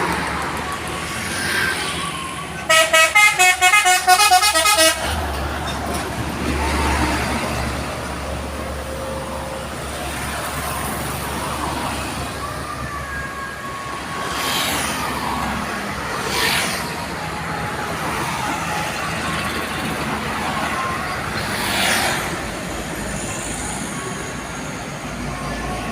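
A telolet horn, the multi-tone musical air horn of an Indonesian truck or bus, plays a quick pulsing run of notes for about two seconds a few seconds in. Steady road traffic runs underneath, and several vehicles pass by later.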